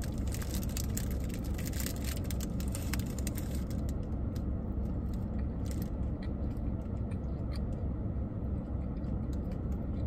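Plastic bread bag crinkling as a piece of soft bread is torn off, a dense run of crackles over the first few seconds that thins to a few later on. Faint chewing follows, over the steady low rumble of the idling car inside its cabin.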